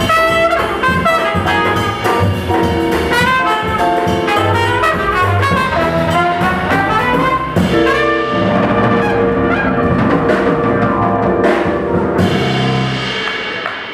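Jazz quartet of trumpet, piano, double bass and drum kit playing. Quick trumpet lines give way, about eight seconds in, to long held notes: the band's closing chord, with a cymbal crash near the end as the sound dies away.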